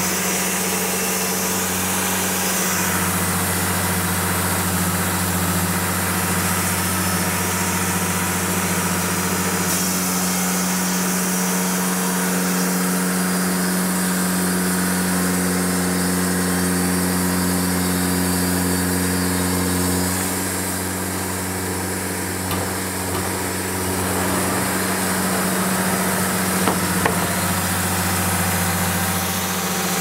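The 49-horsepower Yanmar engine of a Cooks AC-36 band sawmill runs steadily while the band blade saws through a log. The engine note shifts slightly a few times as the load changes.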